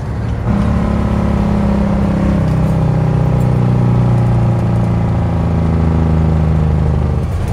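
1979 Kenworth W900A's diesel engine heard from inside the cab while the truck drives on the highway, running steadily under load. It gets louder about half a second in.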